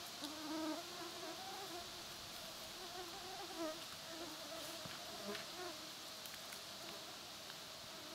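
Flying insects buzzing close by: a faint, wavering drone that drifts in pitch and fades in and out.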